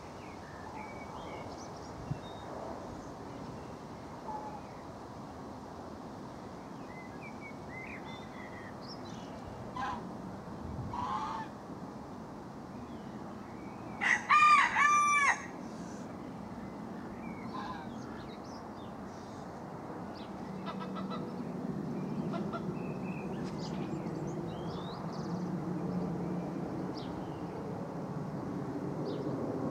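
Distant rumble of a Boeing 777's twin GE90 turbofans passing high overhead, swelling over the last third. A rooster crows once, loudly, about halfway through, and small birds chirp faintly throughout.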